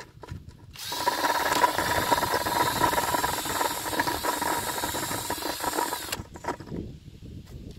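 Battery-powered drill turning a carbide-tipped ship auger bit down into the soil through a bucket, a steady motor whine with noise over it. It starts about a second in, runs for about five seconds and stops suddenly.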